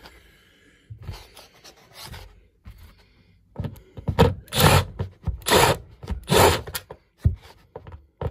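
Rubbing and scraping strokes: a few faint ones in the first half, then four or five louder strokes, each about half a second long, from about three and a half to seven seconds in.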